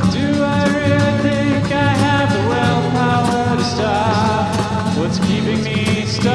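A rock song with a steady beat, guitar and other instruments playing.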